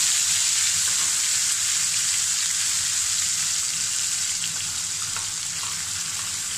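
Tomato and onion paste sizzling in hot oil in a kadhai, a steady hiss that slowly dies down as the paste cools the oil, with a few faint clicks in the second half.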